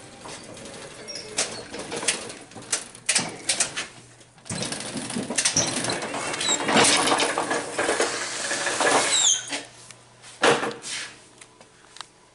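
Handling noise: a run of sharp knocks and clatter, densest in the middle, with a short high squeak about nine seconds in and a last knock near the end.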